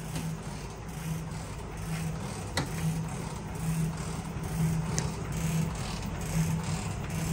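Stanko 7A420 vertical slotting machine running with its rotary table turning under power feed: a steady mechanical hum with a low note that swells and fades, and two light clicks partway through.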